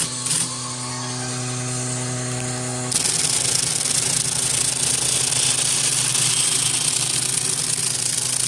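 Sperry Rand electric typewriter with its motor running in a steady hum and a click or two. About three seconds in, a louder, even mechanical rattle from the machine starts and runs on.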